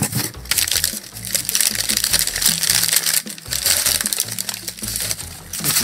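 Packing material crinkling and rustling as a wrapped pint glass is unwrapped by hand, over background music with a steady bass line.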